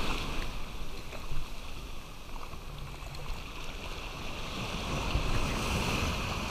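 Shorebreak surf: small waves breaking and foam washing over the sand, a continuous noisy wash that eases a little early and swells again near the end as another wave breaks.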